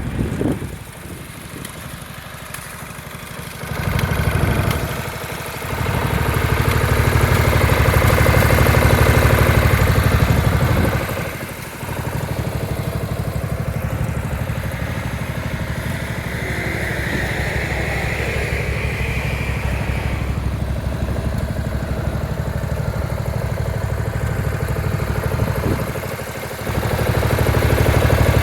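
Lawnmower engine running, quieter for the first few seconds, then louder, its level dropping briefly twice before picking up again.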